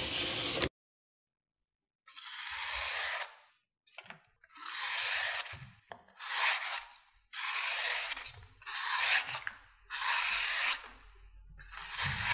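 Blade cutting through packed kinetic sand: a gritty, hissing scrape with each stroke. A first scrape ends under a second in; after a silent gap, about seven more strokes of a second or so follow, separated by dead silence.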